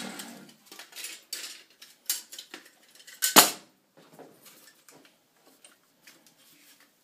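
Chop saw motor winding down after a cut and fading within about half a second, followed by scattered light metallic clicks and clatter, with one sharp knock about three and a half seconds in.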